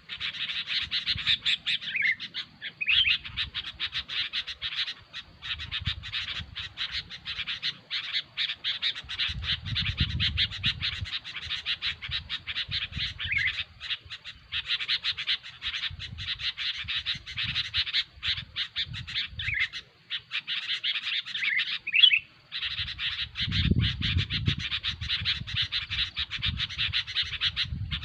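Sooty-headed bulbuls (kutilang) calling noisily in a rapid, unbroken chatter of short notes, pausing only briefly a few times. A low rumble comes and goes underneath.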